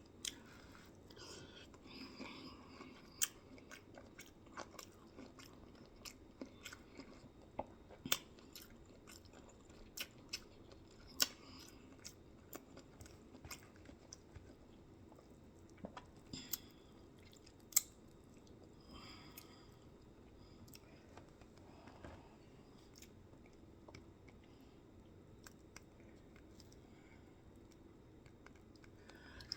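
Close-miked chewing, soft and wet, broken by scattered sharp crunchy clicks every second or two as food is bitten and chewed.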